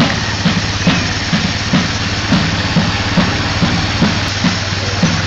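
A steady, even drumbeat of about two and a half beats a second over a low, steady hum.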